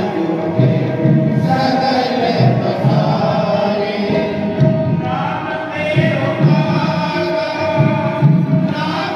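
Devotional aarti hymn sung in a chant-like manner by several voices, over a regular low beat.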